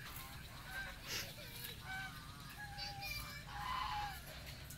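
Domestic fowl calling: a series of short pitched calls, the loudest about four seconds in.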